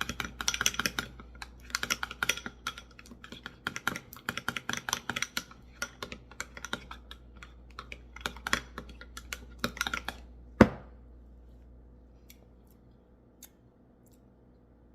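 A spoon stirring a thick peanut-butter and hoisin sauce in a bowl, a fast run of clicks and scrapes against the bowl. About ten and a half seconds in comes a single sharp knock, and after it only a few faint ticks.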